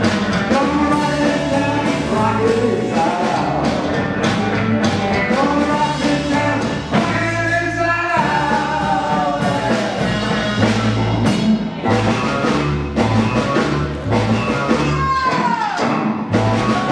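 Rockabilly band playing live, a steady rock-and-roll beat under a pitched lead line, with a falling glide near the end.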